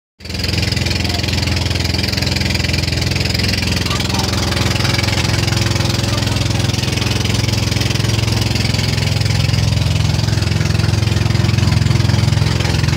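Engine of a motorized outrigger boat running steadily underway, a loud, even drone.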